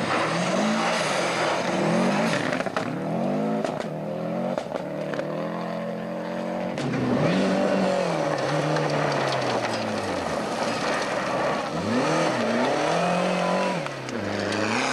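Rally cars driven flat out: engine revs climb and drop back repeatedly through gear changes and lifts off the throttle, with a few sharp cracks in the first few seconds.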